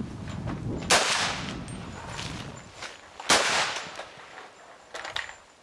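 Two single shots from an M10 rifle, an AR-style rifle chambered in 7.62 mm, fired about two and a half seconds apart. Each is a sharp crack followed by a fading ring.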